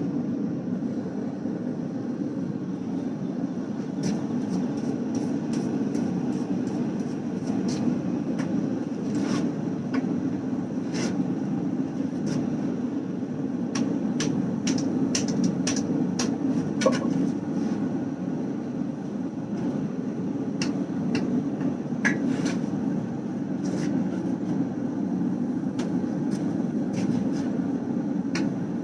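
Forge running with a steady roar, with scattered light metallic taps and clicks as a hot damascus billet is worked and folded over.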